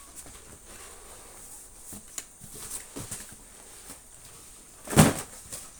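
Packaging handled by hand: faint scattered rustles and light taps, then one loud knock about five seconds in.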